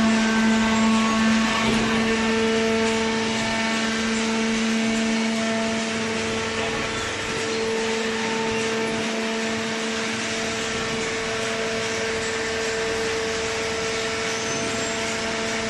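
Hydraulic waste-paper baler running, its motor and pump giving a steady drone with an even hiss, slightly louder over the first few seconds.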